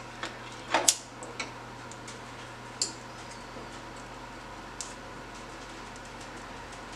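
A few sharp clicks from a hand lighter being worked to light a glass pipe, the loudest about a second in and fainter ones spaced a second or two apart, over a steady low hum.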